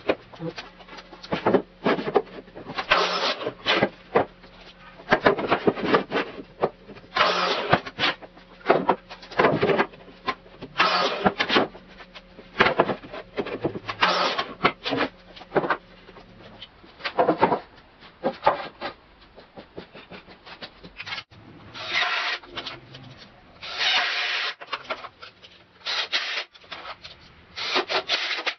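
Construction lumber being handled and fitted: short, irregular bursts of wood scraping, sliding and knocking.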